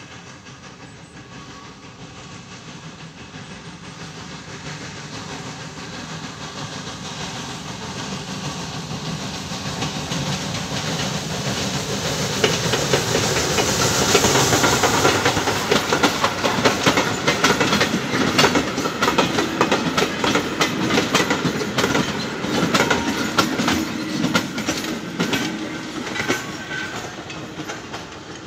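ČSD class 422.0 'Všudybylka' steam tank locomotive hauling passenger coaches past, getting steadily louder to a peak about halfway through, with a hiss of steam as the engine goes by. The coaches' wheels then click over the rail joints as the train moves away and fades.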